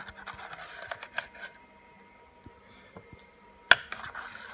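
Small metal parts and tiny screws clinking and scraping as a hand rummages for them in a plastic bucket of cleaning solution, with one sharp click near the end.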